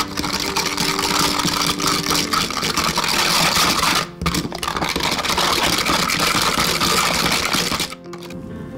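Silicone whisk beating egg yolks fast in a glass measuring cup: a rapid, continuous scraping and clattering against the glass, with a brief pause about four seconds in. The whisking stops suddenly near the end.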